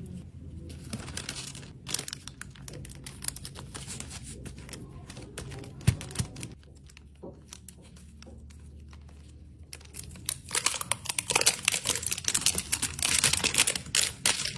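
Paper crinkling and crackling with scattered small clicks and taps. It builds to a dense crackle over the last few seconds as a paper sheet is peeled back from a hardened brown heart-shaped piece.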